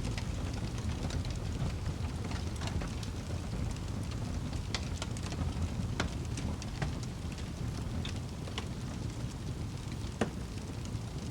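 Wood fire crackling in a fireplace: a steady low rumble of flames with scattered sharp pops and snaps, the loudest pop about ten seconds in.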